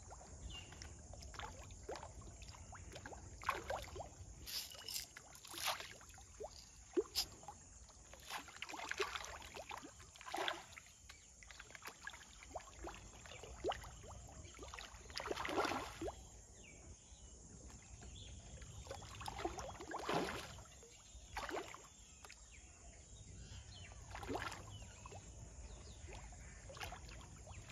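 Fish breaking the surface of a pond, a run of small irregular splashes and plops, some louder than others.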